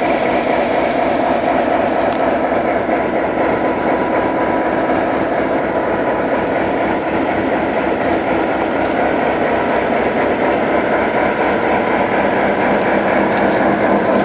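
Serbian Railways series 661 diesel-electric locomotive's EMD two-stroke diesel engine running steadily and loudly at close range, a dense even drone that holds one pitch throughout.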